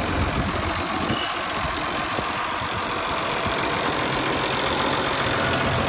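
Engine of a large vehicle idling steadily. Its low hum weakens about a second in and grows again near the end.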